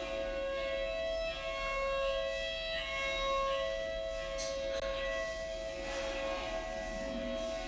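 Outdoor warning siren sounding a steady tone in a county warning-siren test. It holds two pitches at once without rising or falling.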